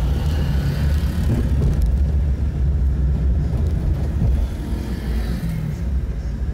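A car's engine and road noise heard from inside the cabin while driving at low speed: a steady low rumble.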